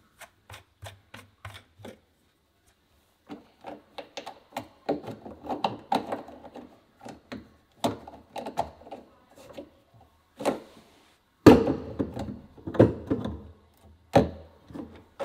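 PVC plastic drain fittings clicking, knocking and rubbing as they are handled and pushed together onto a sink's drain tailpieces. A few light clicks at first, a short pause, then a busier run of knocks, the loudest about eleven seconds in.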